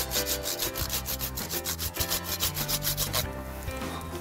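Hand saw cutting through the lower branches of a freshly felled spruce with quick, even rasping strokes that stop about three seconds in.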